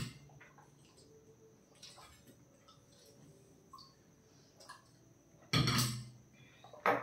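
Quiet eating at the table: faint clinks of spoons on steel plates and small slurps. About five and a half seconds in comes a short loud breathy burst, and a briefer one near the end.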